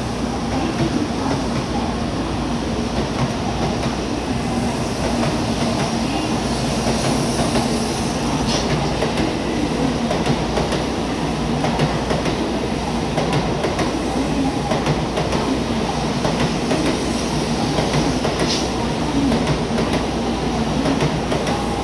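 Steady running noise of N700 series Shinkansen trains at a station platform, with a constant low hum throughout.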